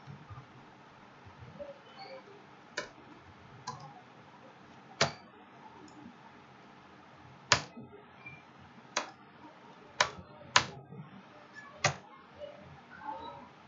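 Sharp, separate clicks of a computer keyboard and mouse being used, about eight of them at irregular intervals, over faint room noise.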